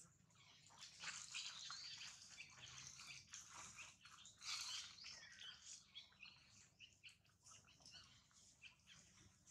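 Faint forest ambience: scattered short high chirps and clicks, a little louder about halfway through.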